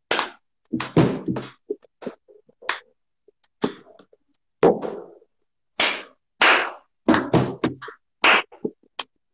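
Hand claps and a plastic cup knocked on a tabletop in a clap-and-cup rhythm game: a run of sharp slaps and knocks at an uneven beat.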